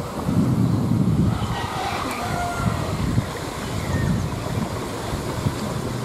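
Wind buffeting the microphone outdoors, an uneven low rumble that rises and falls in gusts.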